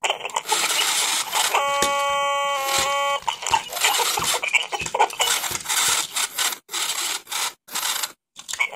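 Circuit-bent black Furby putting out harsh, glitchy electronic static and buzz that cuts out briefly a few times near the end. About a second and a half in, steady synthetic tones sound over it for a second and a half, changing pitch once.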